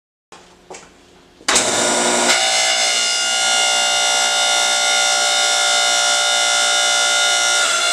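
Background music: a loud, sustained chord of steady tones that comes in suddenly about a second and a half in after a faint lead-in, and holds unchanged.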